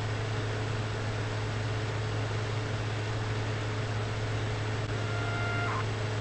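A steady low electrical-sounding hum with hiss; about five seconds in, a higher steady tone with overtones joins, breaks off briefly and returns.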